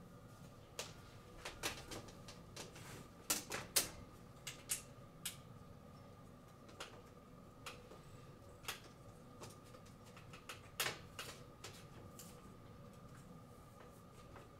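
Irregular light clicks and knocks of metal-framed stained-glass panels being handled and fitted together by hand, with a quick run of sharper clicks about three to four seconds in and a couple more later on.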